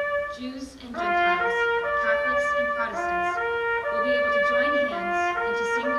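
A young woman's solo voice singing a slow melody of steady held notes that step from pitch to pitch, with softer lower voices beneath. There is a brief catch-breath pause just before a second in.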